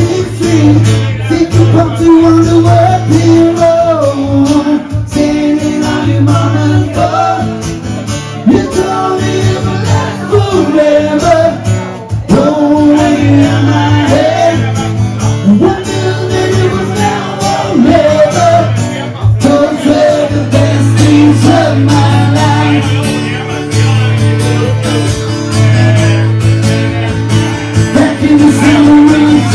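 Live acoustic duo: a man singing into a handheld microphone, accompanied by an acoustic guitar.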